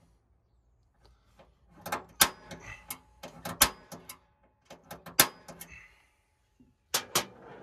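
Pin punch marking the hole positions in a metal panel: a series of sharp metallic strikes, the loudest a little past two, three and a half and five seconds in and two close together near the end, with lighter handling clicks and rattles between them.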